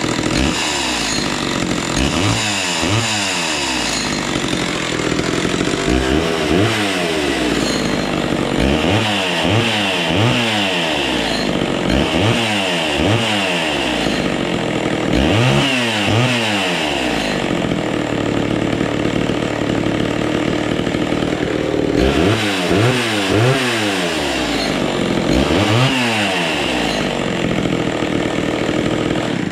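Homelite two-stroke chainsaw idling, its throttle blipped about seven times, each a quick rise and fall in engine pitch, often two revs back to back.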